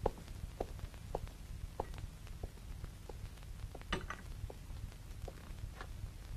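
Low steady hum with scattered faint clicks. About four seconds in comes a brief, brighter clink, a glass being set down on the bar counter beside the bottle.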